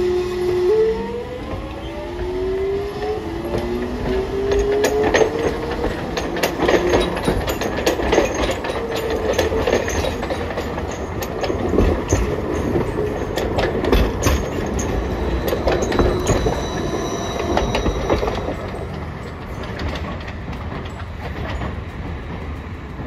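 Hiroshima Electric Railway trams running on street track. First a departing tram's electric motor whine rises in steps, then a Green Mover articulated low-floor tram rolls past close by, its wheels clicking and knocking over the rails, and the sound fades as it moves off.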